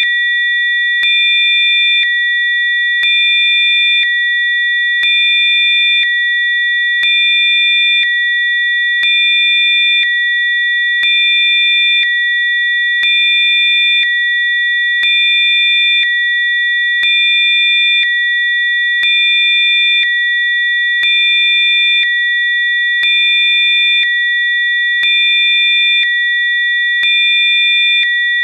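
Electronically generated Rife-frequency sine tones: several steady high pure tones held together, with fainter tones switching on and off every second, so the sound steps slightly up and down in loudness once a second.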